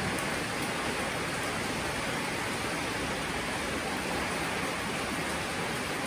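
Steady rain: an even, unbroken hiss with no single drops, calls or knocks standing out.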